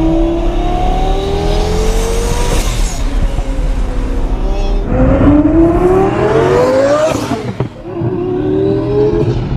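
Twin-turbo Lamborghini Gallardo V10 under hard acceleration, its pitch climbing steadily through each gear, with a short break and a burst of noise at each shift: three pulls, the breaks about three seconds in and again near seven and a half seconds.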